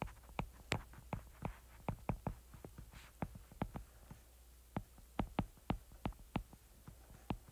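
Stylus tapping and clicking on a tablet screen during handwriting: an irregular run of small sharp clicks, several a second, over a faint low hum.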